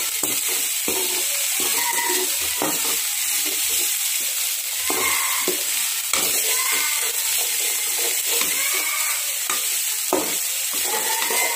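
Chopped onion and garlic sizzling in hot oil in a metal pan, with a steady hiss. A metal spatula stirs them, scraping and knocking against the pan at irregular intervals.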